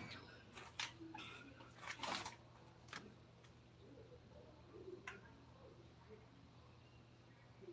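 Faint, scattered clicks and taps over a low steady hum: a few in the first three seconds, the loudest about two seconds in, and one more about five seconds in.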